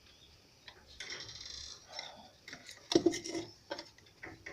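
Analog multimeter's continuity buzzer sounding briefly about a second in, followed by a run of sharp clicks and knocks, the loudest about three seconds in.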